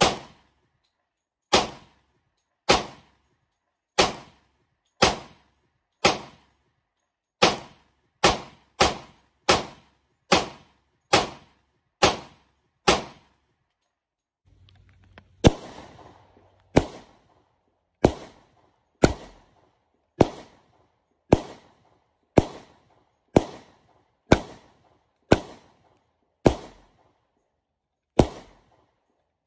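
Glock 20 Gen 4 pistol in 10mm Auto firing shot after shot at a steady pace of about one a second, each shot a sharp crack with a short fading tail. After about fourteen shots comes a pause of a couple of seconds with faint handling noise, then about a dozen more shots.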